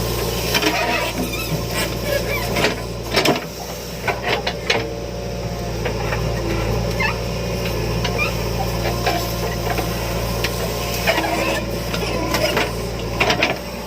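Diesel engines of a backhoe loader and tractors running steadily, with scattered sharp knocks and clanks over the drone.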